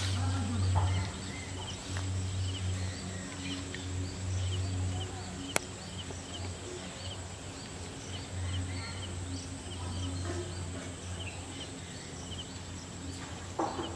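Outdoor ambience of short, high animal calls repeating about twice a second over a low hum, with one sharp click about halfway through.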